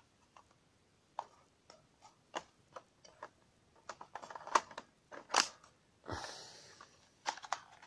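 Light clicks and clacks of a plastic toy M1911 pistol's magazine and plastic rounds being handled, as a round is loaded and the magazine is fitted toward the grip. The loudest clicks bunch up about four to five and a half seconds in, and a short rustle comes about six seconds in.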